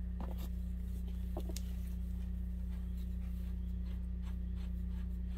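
Steady low hum with a few faint light clicks and taps of hand tools being handled around a motorcycle's rear axle; no loud hammer blows.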